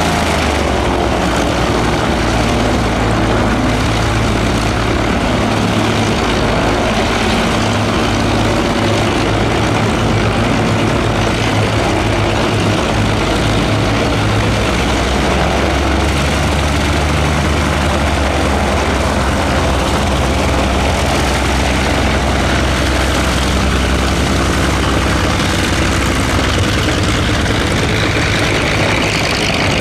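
The twin inverted six-cylinder de Havilland Gipsy engines of a Dragon Rapide biplane running at taxi power, with a steady low propeller drone whose pitch shifts about halfway through.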